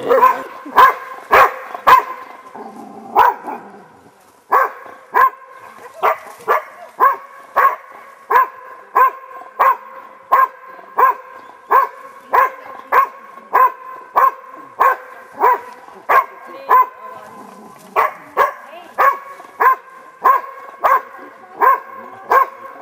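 Hunting dog barking steadily and rhythmically, about two barks a second, with a brief break about three seconds in: baying at a pendulum boar dummy.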